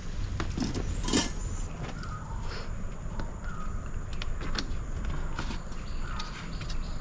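Metal fittings clinking and jingling among canvas rustles as a rooftop tent is handled, with a sharp clink about a second in.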